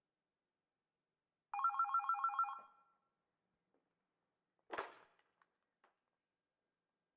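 A short electronic ringing trill, like a telephone ringtone, pulsing rapidly on a few pitches for about a second. Near five seconds in comes a brief noisy swish.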